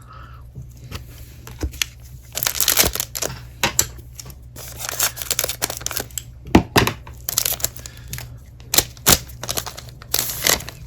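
Trading cards and their foil pack wrapper being handled, making irregular crinkling and rustling with short sharp clicks.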